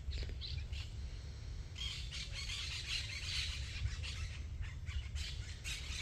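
Wild birds chirping and calling together, the chatter growing denser from about two seconds in, over a steady low rumble.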